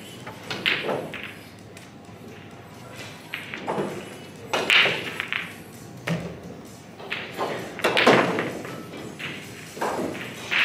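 A few scattered knocks and thuds echo in a large hall, about four of them, the loudest a little after the middle. This is the clatter of play on other pool tables in the room.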